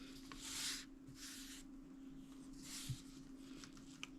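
Faint handling noise: three soft rubbing swishes and a light knock near three seconds in, over a steady low electrical hum.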